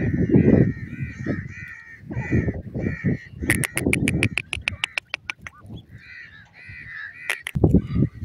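Grey francolins calling: harsh, arched notes repeated about twice a second, with a fast run of sharp ticks in the middle and low rumbling noise underneath.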